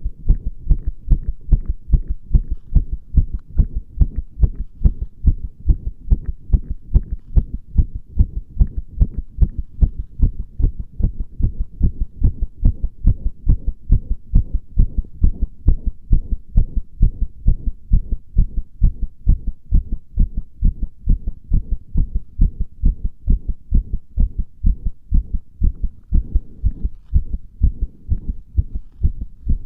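A human heartbeat heard through a microphone pressed against the chest: a steady, even rhythm of deep lub-dub thuds.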